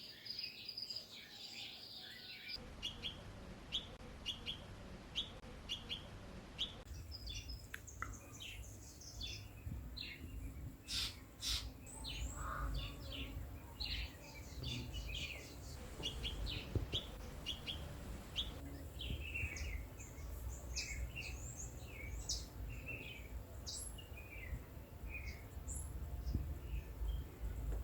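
Many birds chirping and twittering, short high calls overlapping throughout, over a low background rumble.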